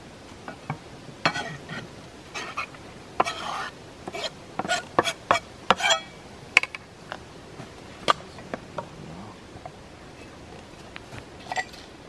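A kitchen knife scraping and tapping on a plastic cutting board and clinking against a metal tray as diced lamb liver is pushed into it. The sound is a run of irregular clicks and clatters, some with a short metallic ring, thinning out after about nine seconds and returning briefly near the end.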